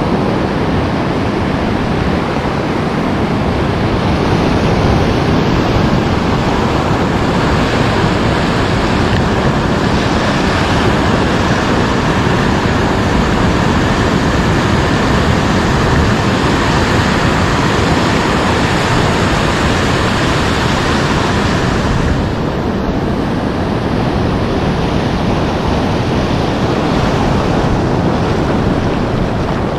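Steady rush of breaking surf and foamy wash over sand, with wind buffeting the microphone.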